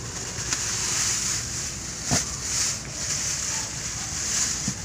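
Thin plastic produce bags crinkling and rustling as they are handled and opened, in uneven swells, with one sharp tap about two seconds in.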